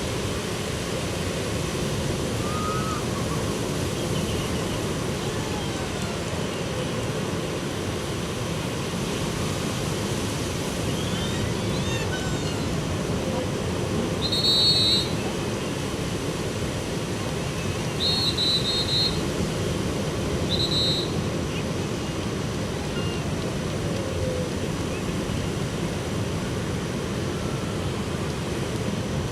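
Steady wash of ocean surf breaking on a beach. Three short high-pitched chirps cut through it about halfway through, each lasting under a second.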